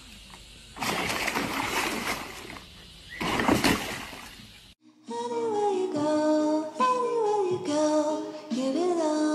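A dog splashing in a plastic paddling pool of foamy water, in two bursts. About five seconds in this gives way to music with a singing voice.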